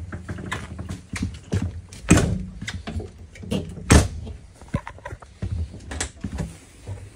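Footsteps on a travel trailer's floor with knocks and thumps from a frosted-glass interior door being handled; the loudest thumps come about two seconds in and again about four seconds in.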